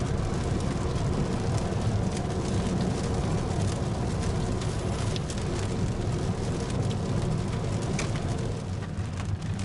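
Mitsubishi Outlander PHEV driving on a wet expressway in heavy rain: a steady rush of tyre and road noise, strongest in the low end, with scattered ticks of rain hitting the car.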